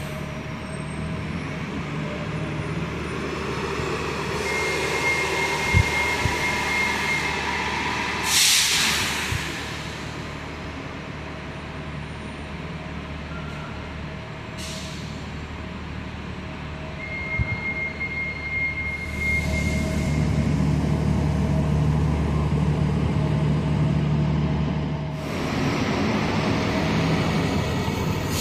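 Transit buses running in the terminal: a steady engine drone that grows louder about two-thirds of the way through. It is broken by sharp bursts of air-brake hiss, the loudest about eight seconds in and at the end, and a thin high tone sounds twice for a few seconds.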